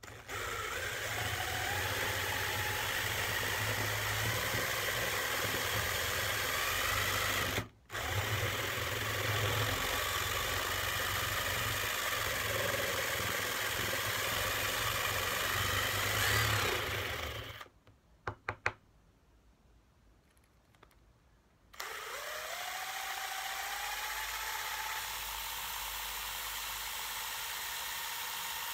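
Yellow cordless drill boring into the end of a driftwood handle. The motor spins up with a rising whine and runs steadily, stops for a moment about eight seconds in, then runs on until about seventeen seconds. After a few clicks and a pause of about four seconds, it spins up again and runs steadily.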